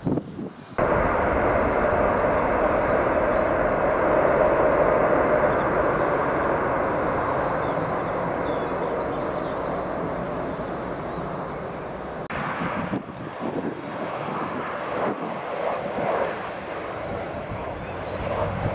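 Jet airliner engines running as the aircraft taxi: a loud, steady rush of engine noise that starts abruptly about a second in and slowly eases. About twelve seconds in it changes abruptly to quieter engine noise with a few sharp clicks.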